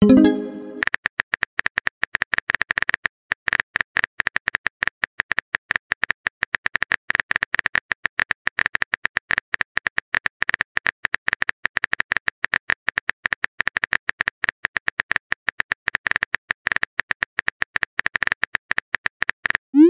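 Rapid on-screen keyboard tap sounds from a texting app, several clicks a second, with a short pause about three seconds in. A message-sent sound with a quick rising glide comes right at the start and begins again at the very end.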